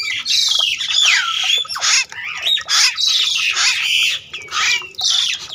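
A flock of birds chattering and squawking: many overlapping calls with quick rising and falling notes, one after another without a break.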